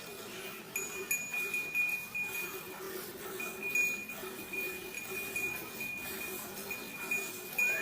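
A cow being milked by hand: milk squirting into a pail in a loose rhythm, over a steady high tone that breaks off now and then.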